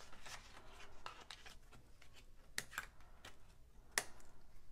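Faint cardstock handling with scissors: a handful of short, sharp snips and paper rustle as small cut bits are trimmed out of a scored box template.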